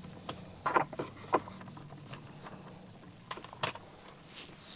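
Faint, scattered light clicks of a small Torx screwdriver working out a T10 screw from a steering-column clock spring, about half a dozen in all, over a faint low steady hum.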